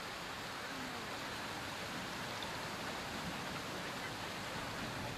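Steady, even rush of flowing water with no distinct events.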